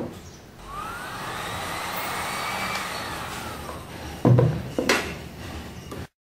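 Heat gun's blower motor whirring, its pitch climbing as it spins up and then sinking as it runs down. Two sharp knocks follow about four and five seconds in as the gun and its metal nozzle are handled.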